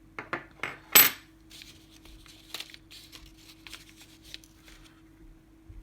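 Small metal parts of a disassembled Assa Twin 6000 lock clicking and clinking as its sidebar is taken out. A few sharp clicks are followed by one loud metallic clink with a brief ring about a second in, then a run of faint light ticks from handling the parts.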